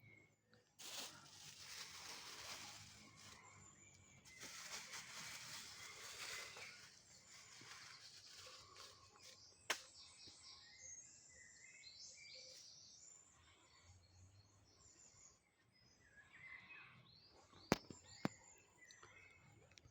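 Birds chirping and singing, faint, with two spells of rushing noise in the first few seconds. Three sharp clicks stand out: one about ten seconds in and two close together near the end.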